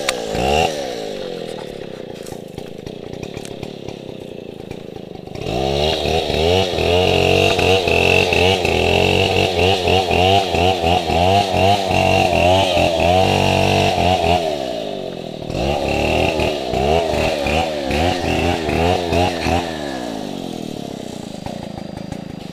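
Stihl 070 two-stroke chainsaw idling, then run at full throttle twice, with a short drop to idle between, its pitch wavering as it cuts through a log. It falls back to idle near the end.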